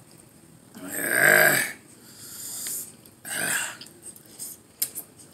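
A man lets out a loud, deep burp about a second in, then slurps a mouthful of instant ramen noodles a couple of seconds later.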